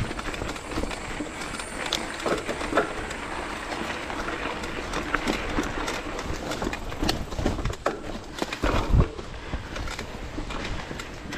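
Enduro motorcycle on a rough trail: irregular knocks and rattles over a steady rushing noise, with a heavier thud about nine seconds in.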